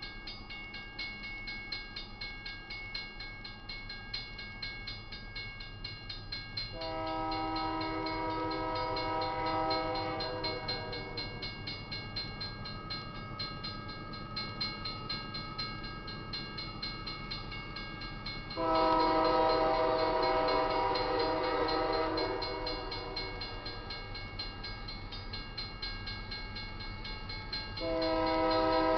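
Union Pacific GE AC44CW diesel locomotive's multi-note air horn sounding two long blasts and starting a third near the end, the grade-crossing warning. Underneath, a crossing bell rings steadily and fast.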